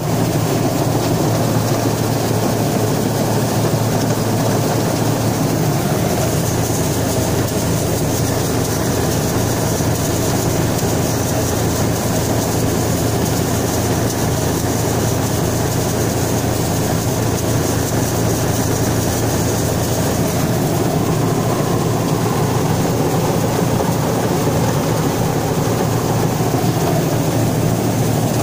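John Deere 330 combine harvester running steadily while threshing, a constant low engine hum under the even noise of the machine working.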